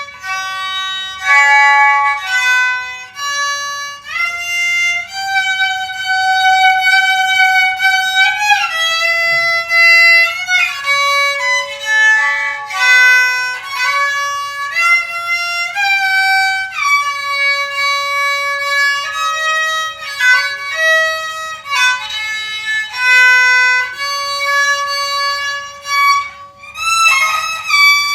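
Kokyu, the Japanese bowed string instrument, playing a slow solo melody: one line of held notes, some joined by slides in pitch.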